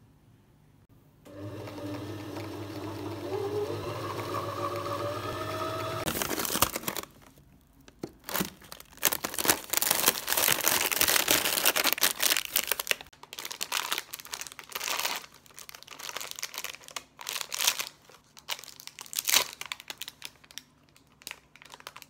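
A hum whose pitch slowly rises over a few seconds, then plastic packaging crinkling and rustling in irregular bursts as an ice-cream bar in its plastic wrapper is pulled from among plastic freezer bags and unwrapped.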